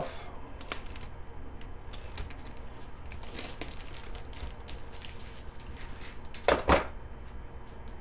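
Diagonal cutters snipping and working loose the split metal armor of MC cable: a run of small metallic clicks and ticks, with a couple of louder snaps about six and a half seconds in.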